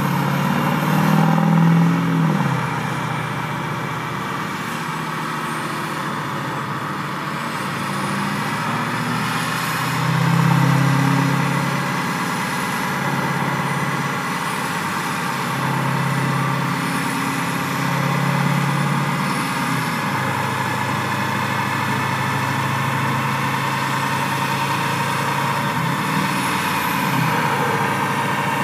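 Duramax V8 turbodiesel of a GMC pickup running on a chassis dyno, its note swelling and easing several times and then holding steady. A faint high whistle rises and falls with it.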